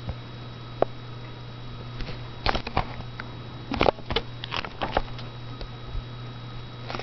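Pages of a hardcover yearbook being handled and turned: scattered short paper rustles and clicks, thickest in the middle, over a steady low hum.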